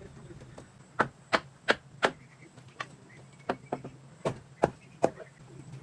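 A series of sharp blows from a tool striking something hard: four in quick even succession, about three a second, then four or five more, more unevenly spaced, over a low steady hum.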